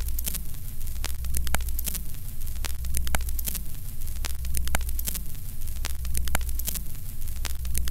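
Vintage film-leader countdown sound effect: a steady low hum under static crackle and sharp pops, with a falling swish repeating about once a second as the numbers count down.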